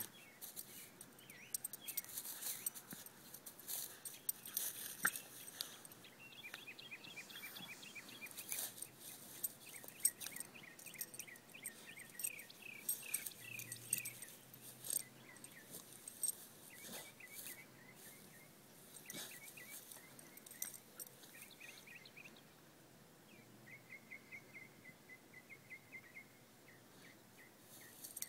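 Faint rustling and scuffling in grass as a puppy paws at and pounces on a mouse, with short runs of rapid high chirps several times.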